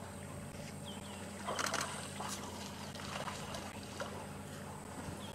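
African elephants wading in shallow water, their legs stirring up irregular splashes and sloshes, the biggest about a second and a half in. A steady low hum runs underneath.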